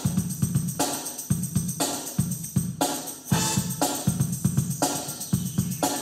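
Music from a vinyl record playing on a turntable: a late-80s or early-90s track with a steady drum beat and a repeating bass line.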